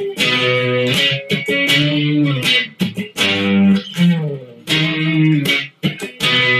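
Electric guitar played through an amplifier: chords and notes picked in short phrases, with brief breaks between them.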